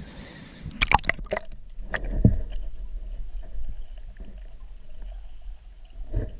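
A few sharp splashes, then muffled sloshing, gurgling and low knocks heard from under the water, as from a camera dunked in the river.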